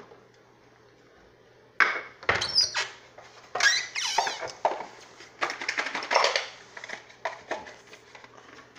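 Irregular clatter of dishes and containers being handled on a kitchen counter, starting about two seconds in, with a squeak near the middle.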